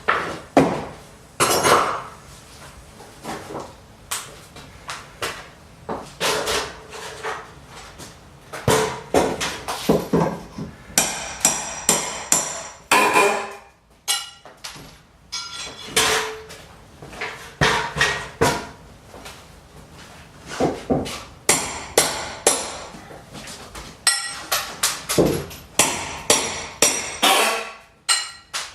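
Hand hammer driving nails: many sharp blows at an uneven pace, some in quick runs, several with a brief high metallic ring.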